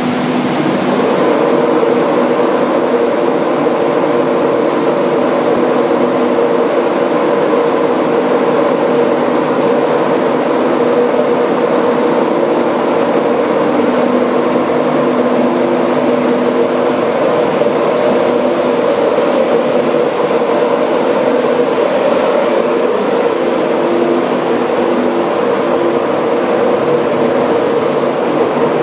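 Class 91 electric locomotive pulling an InterCity 225 train away from the platform: a steady electric hum with several held tones over the rumble of the train as the locomotive and then its coaches pass.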